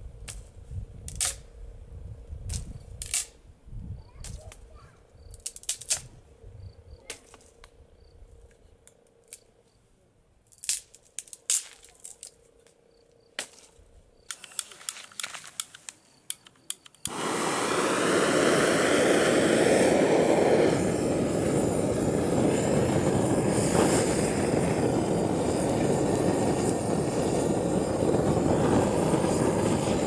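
Scattered sharp snaps and clicks of dry sticks being broken and handled. About halfway through, a gas-canister blowtorch lights with a sudden loud hiss and burns steadily as it sets the kindling alight.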